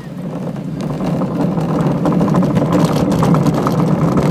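Alpine slide sled's wheels rolling on the concrete track, growing louder over the first second or so as it picks up speed, then steady.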